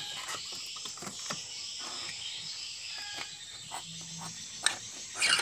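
Scattered light clicks and knocks of metal parts and the rubber drive belt being handled as the front pulley and belt come off a Honda Vario 150's CVT, over a steady high hiss. A couple of sharper clicks come near the end.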